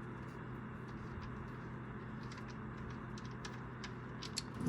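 Faint, scattered light clicks over a steady low hum as the loosened oil drain plug is unscrewed from a Nissan 350Z's oil pan; the clicks come a little closer together near the end.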